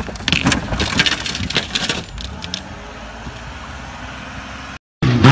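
An off-road truck rolling over down a snowy slope: a rapid run of crunches, clattering and metallic rattles for about two and a half seconds, then it comes to rest. An engine starts revving just at the end.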